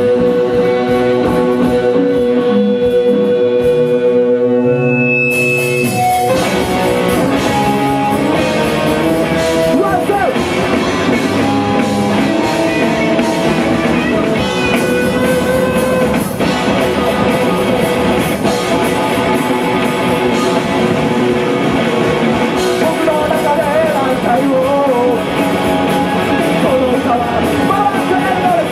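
A rock band playing: a guitar plays alone at first, then about five seconds in the drums and the rest of the band come in together.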